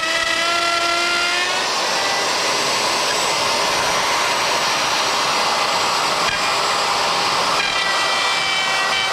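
Handheld router running at speed with a high steady whine, then cutting along a template edge from about a second and a half in, when the whine gives way to a rough, loud cutting noise; near the end the load eases and the whine returns.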